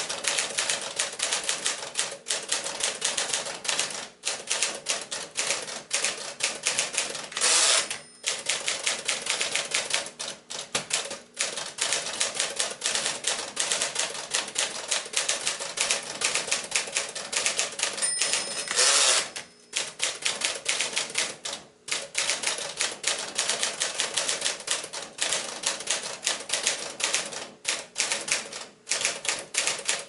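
1953 Smith-Corona Sterling manual typewriter being typed on quickly, a dense run of key and typebar clacks. About eight seconds in and again about nineteen seconds in the typing breaks for a carriage return, the second one preceded by a short ding of the margin bell.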